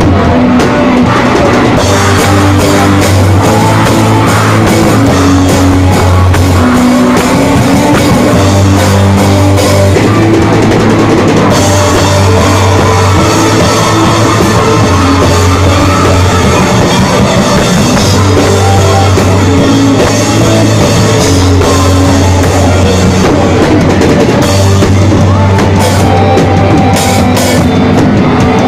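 Live rock band playing loud, heard from right beside the drum kit: pounding drums and crashing cymbals over electric guitar and low bass notes that change every second or two.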